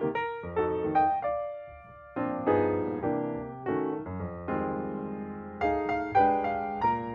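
Background piano music: chords struck one after another and left to die away, with a brief lull about two seconds in.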